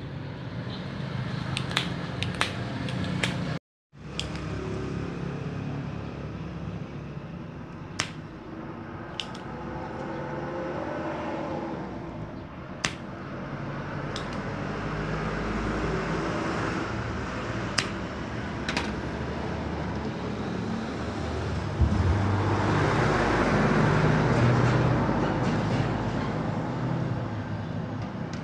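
Workbench sounds during capacitor removal from a TV power-supply board: a steady low hum with scattered sharp clicks of small tools, and a swell of rustling noise near the end.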